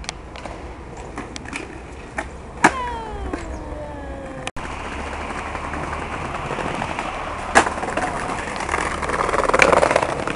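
Skateboard wheels rolling over concrete and then wooden decking, with sharp clacks of the board popping and landing, the loudest about two and a half seconds in and again near the end.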